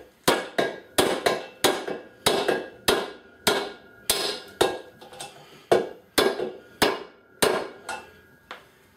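Hammer striking a metal bearing driver set in a motorcycle rear wheel hub: about twenty sharp metallic blows at two to three a second, driving a wheel bearing home into the hub. The last blows are lighter as the bearing seats.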